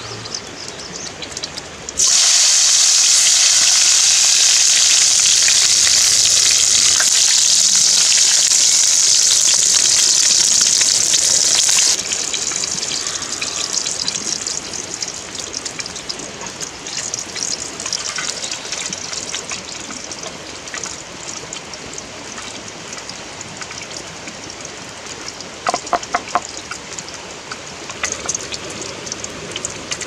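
Loud sizzling hiss of food frying in a hot pan over a wood fire. It starts suddenly about two seconds in and cuts off about ten seconds later, then goes on as a quieter sizzle with small crackles.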